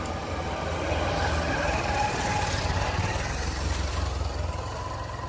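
Low, steady rumble of a road vehicle's engine, growing louder through the middle and easing off near the end.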